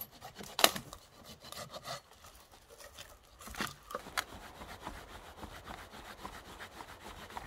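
Small hand saw cutting through a dead branch with quick, even back-and-forth strokes, the teeth rasping on the dry wood. A few sharp cracks break in, the loudest about half a second in.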